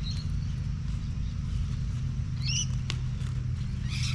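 A few short, high bird chirps over a steady low rumble.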